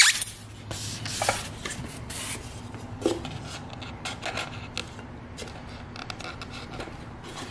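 Foam mount block being cut down and trimmed by hand: irregular scraping, rasping strokes with a sharp knock or two at the start.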